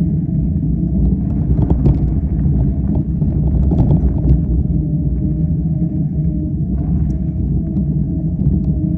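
Motorcycle engine running at a steady pitch while under way, with a heavy low rumble. A few brief knocks come through about two, four and seven seconds in.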